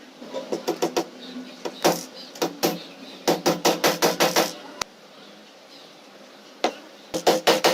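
Hammer striking nails into wood in quick runs of blows, about five a second, with short pauses between runs.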